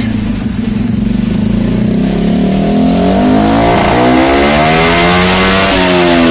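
Honda Dax-style minibike's single-cylinder engine revving up under load on a chassis dyno during a power run, its pitch climbing steadily as the rear wheel drives the roller.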